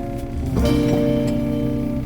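Background music with sustained chords, changing chord about half a second in.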